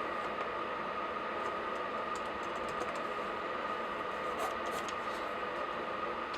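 A few scattered laptop keystrokes over a steady background hiss, with a couple of short scratchy strokes about four and a half seconds in.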